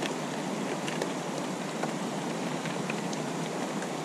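Shallow mountain river rushing over boulders, with faint, scattered clicks and clacks of softball-sized rocks tumbling down a rock slide.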